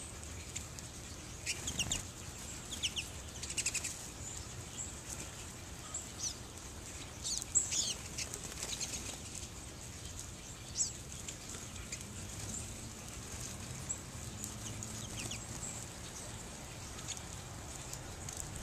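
Small finches, American goldfinches and pine siskins, giving short high chirps and twitters in scattered clusters, the loudest about seven and a half seconds in, over a steady low background rumble.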